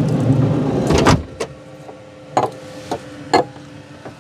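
A camper van's sliding side door rolled shut with a rumble, ending in a slam about a second in, followed by a few sharp knocks.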